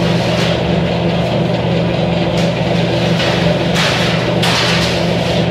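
A large bakery mixer runs with a steady hum while beating cake batter, and an iron baking sheet scrapes several times as it is slid out of a metal tray rack, the longest scrapes coming near the end.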